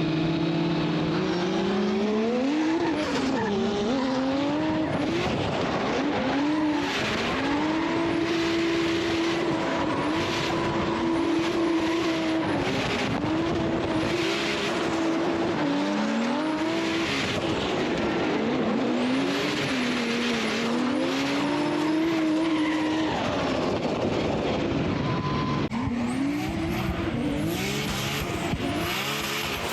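Drift car engine revving up and down again and again through a run, with tyres squealing as the car slides.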